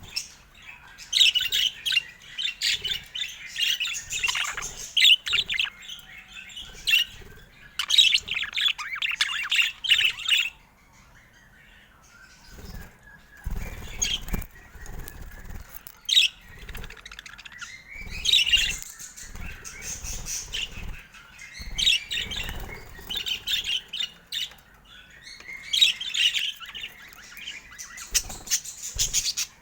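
Budgerigars chirping and chattering in quick warbling bursts, with a short lull about a third of the way in and a few low thumps.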